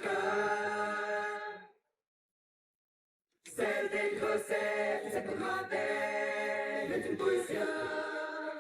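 Layered singing in close harmony, several voices together, from a live band performance. It cuts off to dead silence under two seconds in and starts again about a second and a half later.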